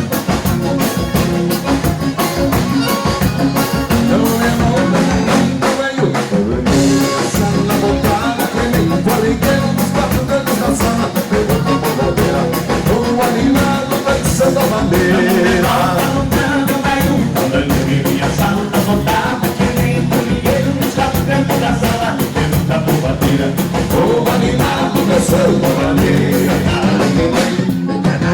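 Live gaúcho dance band playing dance music with a steady drum-kit beat; the music drops out briefly about six and a half seconds in.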